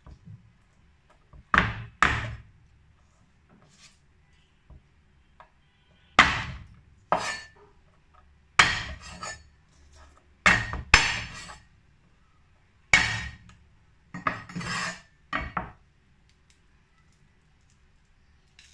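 Flat of a Chinese cleaver slapping down on garlic cloves on a wooden cutting board, crushing them: about a dozen sharp whacks, often in quick pairs, ending a few seconds before the end.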